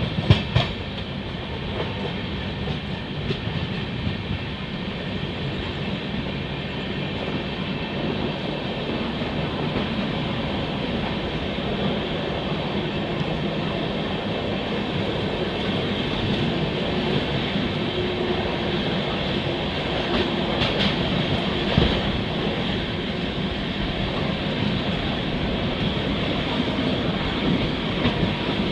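Passenger train coaches running on the track, a steady rumble and rattle of wheels on rail, with a few clicks near the start and one sharp knock about three-quarters of the way through.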